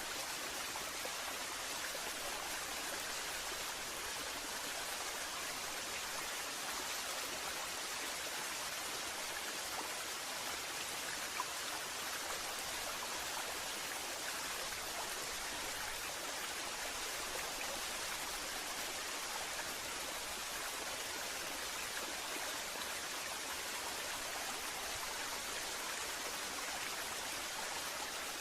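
Waterfall: a steady rush of falling water, with no change in level.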